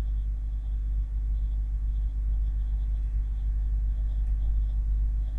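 Steady low background rumble, with no speech.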